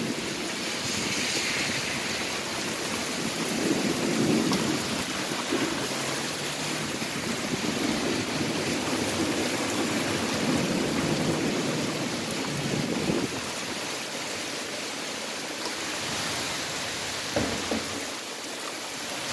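Heavy summer thunderstorm rain pouring steadily, with a low rumble of thunder rolling through the first half. A couple of short knocks near the end.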